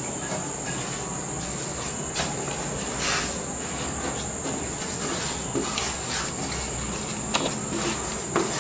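Plastic sheet flooring handled and pressed into place by hand: scattered rustles and a few sharp clicks and taps, over a steady high-pitched whine.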